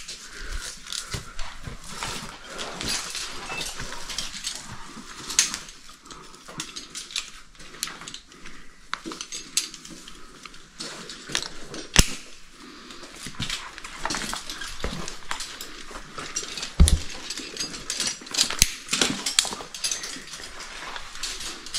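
Caving rope gear being handled: metal carabiners clinking and clicking against each other and the rope, with irregular scrapes and knocks and one sharp clink about twelve seconds in, over the caver's breathing.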